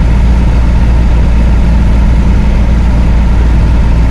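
Vehicle engine heard from inside the cab, cruising steadily at about 80 km/h, a continuous low drone with road noise from the tyres on wet asphalt.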